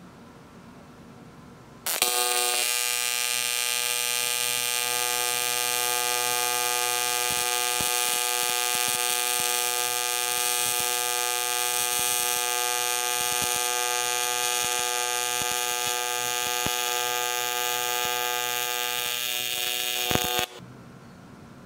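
AC TIG welding arc on aluminum from an HTP Invertig 221, set to 125 Hz AC frequency, giving a steady buzz with faint crackles. The arc strikes about two seconds in, runs for about eighteen seconds and cuts off suddenly.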